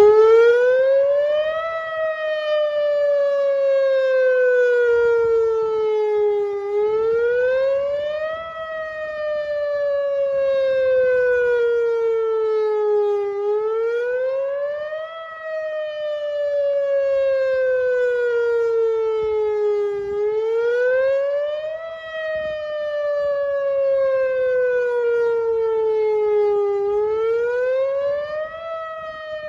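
Whelen WPS 2906 electronic outdoor warning siren sounding its attack signal in a test. It gives a loud wailing tone that climbs quickly and then falls slowly, repeating about every six and a half seconds.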